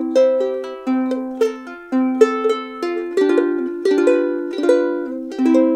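Ukulele played in strummed and plucked chords, each chord ringing and fading before the next about every half second to a second. It is recorded through a Comica micro shotgun microphone plugged into an iPhone.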